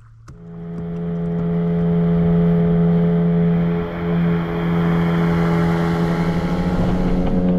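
Boat's outboard motor: a click, then the engine speeds up over a couple of seconds and runs steadily under way, with a brief dip in level midway.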